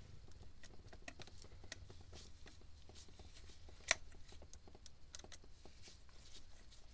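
Faint clicks and scrapes of a screwdriver turning the small cover-plate screws of a Yanmar 3YM30 raw-water pump as the cover goes back on after an impeller change, with one sharper click about four seconds in.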